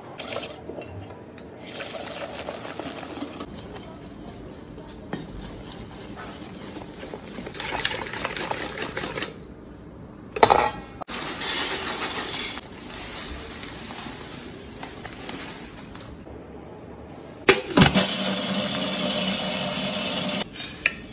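Wire whisk beating eggs and then batter against a stainless steel mixing bowl: a fast, rhythmic metallic scraping rattle in several short bursts. There are a couple of sharp clanks, and near the end a louder steady hiss.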